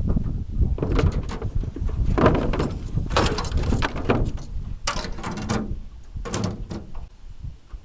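Wind buffeting the microphone with a steady low rumble, broken by about five short rattling, clicking mechanical noises a second or so apart that fade out toward the end.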